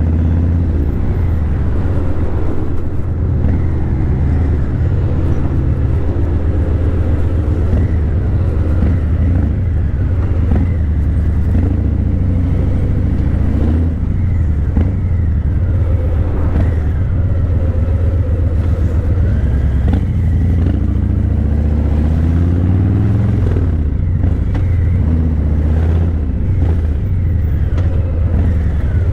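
Harley-Davidson Breakout 117's Milwaukee-Eight 117 V-twin running through Vance & Hines Eliminator 300 slip-on mufflers while riding. A steady deep drone, with the engine pitch rising and falling several times as the throttle opens and closes.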